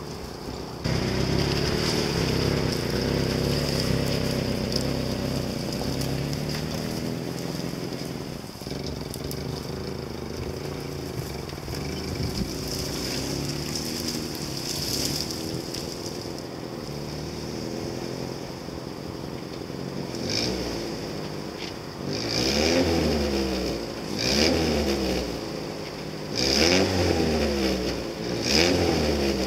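Lada Niva's engine pulling the car over rough off-road ground. Near the end it revs up and drops back in four short bursts about two seconds apart as it works over a mound on ordinary road tyres.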